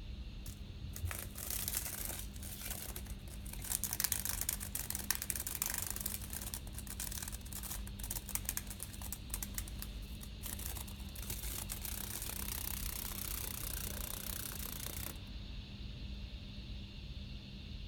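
A cicada buzzing in crackly, rattling fits and starts, settling into a steadier high buzz that cuts off suddenly about fifteen seconds in. A low steady hum runs underneath.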